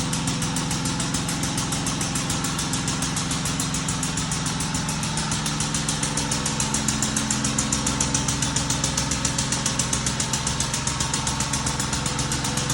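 Audi car engine idling steadily with an even, quick pulse.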